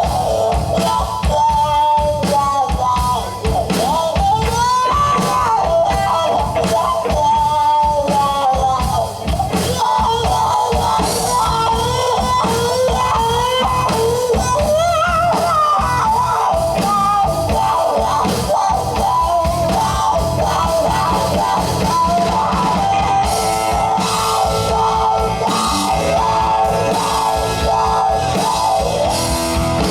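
Rock band playing: drum kit and guitar, with a melodic lead part whose notes slide and bend in pitch over a steady beat.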